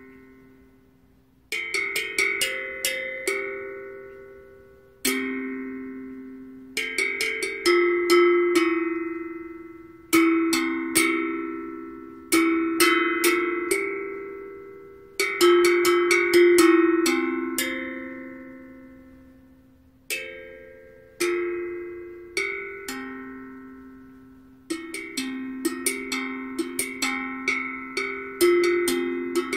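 Steel tongue drum played with mallets in a loose improvisation: short runs of struck notes, each left to ring and fade, with single notes decaying in the pauses between phrases.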